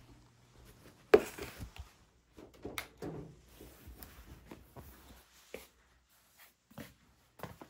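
Household knocks and clatter in a small room: one sharp knock about a second in, then scattered light taps and rustling.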